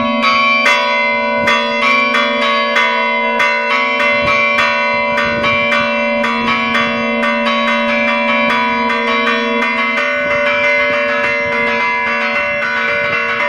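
Church bells rung by hand in a rapid peal: ropes pull the clappers against the bells several times a second, and each strike's tone rings on and overlaps the next.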